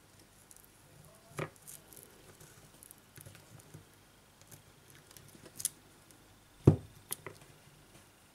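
Small tools and fingertips handling the internals of an opened smartphone: faint rustling and scraping broken by a few sharp little clicks and taps. The loudest click comes about two-thirds of the way in, followed closely by two lighter ones.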